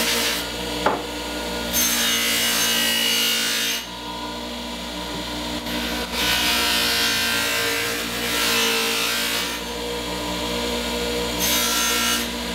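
Bench grinder motor running steadily while the steel edge of a short-handled adze is pressed to the spinning abrasive wheel in three passes, each a hiss of metal on abrasive lasting a second or a few seconds. The edge is being honed to work out a nick.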